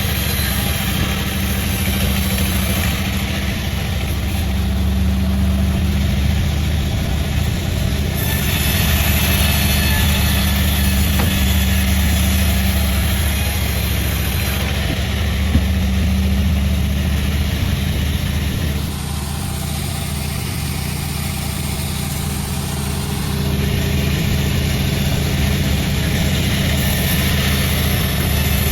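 Sawmill running: a steady low engine hum with the noisy hiss of the saw cutting through wadang wood, which eases off for a few seconds past the middle and then picks up again.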